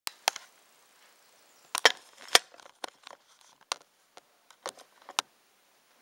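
Irregular sharp clicks and knocks, about a dozen, the loudest around two seconds in: handling noise as the camera is set up and positioned.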